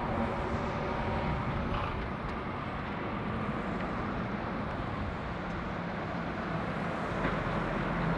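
Articulated lorries, a tanker and a tractor unit with an empty low-loader trailer, driving past with their diesel engines running and tyres on the road: a steady rumble of heavy traffic.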